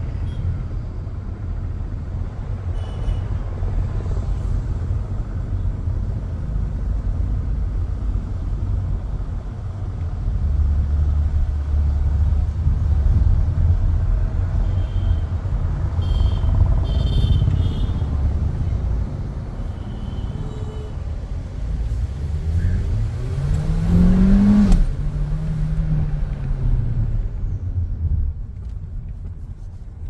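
Volkswagen Taigun GT's 1.5 TSI turbo-petrol four-cylinder engine heard from inside the cabin with road rumble while driving. About two-thirds of the way through, the engine note rises under acceleration and drops abruptly at a DSG upshift, then falls away as the car eases off near the end.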